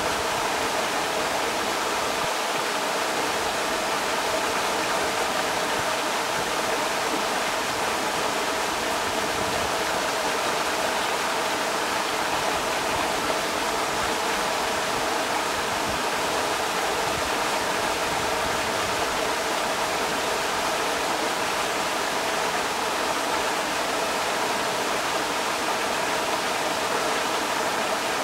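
Creek water rushing steadily over rocks, an even, unbroken rush with no distinct splashes.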